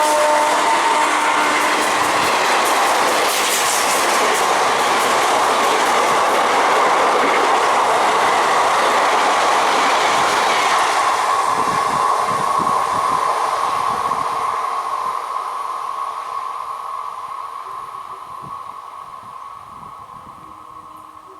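A train passing close by at speed: a loud, steady rumble and rattle of wheels on the rails, with a steady high ringing running through it. It begins to fade about two-thirds of the way in and dies away steadily as the train recedes.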